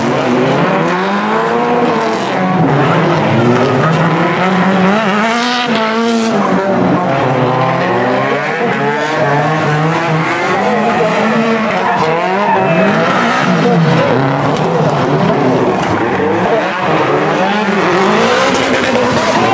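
Drift cars' engines revving hard, their pitch repeatedly rising and falling as the cars slide through the corners, with tyres squealing on the track.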